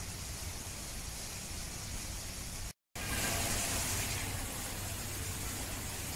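Steady background hiss of ambient noise, broken by a moment of total silence about three seconds in, after which the hiss comes back slightly louder and brighter for about a second.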